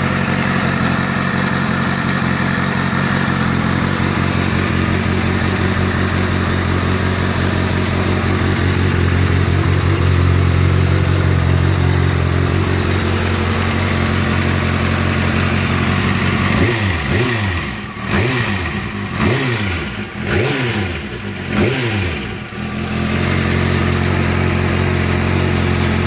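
Kawasaki ZX-6R inline-four motorcycle engine, fully warmed up, idling steadily, then blipped about five times in quick succession past the middle before settling back to idle. The recording is meant to capture a ticking noise that the owner hears from the engine.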